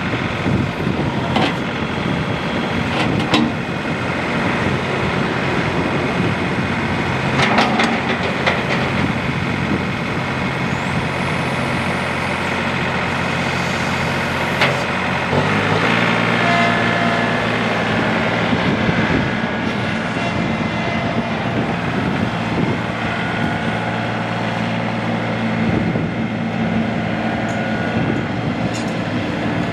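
John Deere 3032E compact tractor's three-cylinder turbocharged Yanmar diesel running as the tractor drives along, its engine note stepping up in pitch about halfway through. There are a few scattered clunks.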